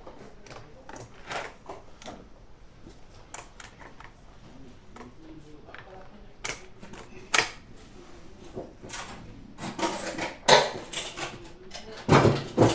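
Irregular small clicks and taps of a rifle and shooting gear being handled, with a few sharper knocks about halfway through and near the end.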